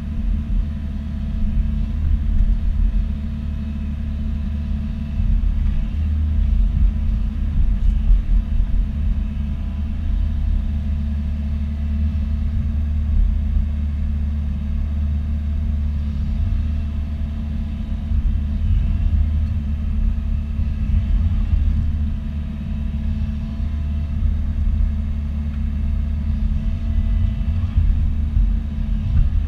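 Bobcat E42 mini excavator's diesel engine running steadily with a deep rumble while it works backfilling a trench.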